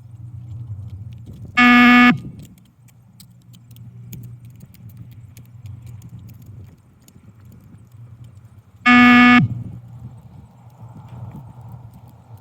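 Two loud electronic beeps from a beep-test (multistage fitness test) recording, each about half a second long and about seven seconds apart, each marking the end of a 20-metre shuttle at the pace of stage 3. A low steady hum runs underneath.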